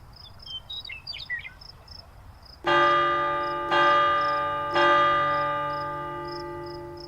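A bell struck three times about a second apart, each stroke ringing on and slowly fading. Before the strokes there are a few brief bird chirps, with a faint, regular high ticking throughout.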